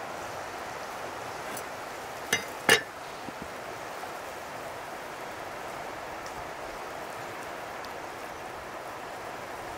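Two short, sharp clinks a little under half a second apart, the second louder, over a steady rushing background noise.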